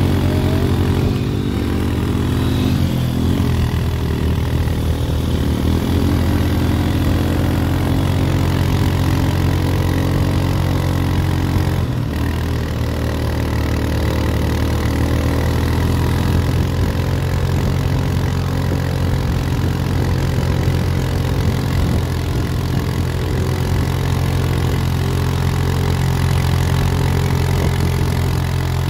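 Quad bike engines running: a steady low engine hum, with a second engine's pitch rising and falling repeatedly as the rider throttles on and off.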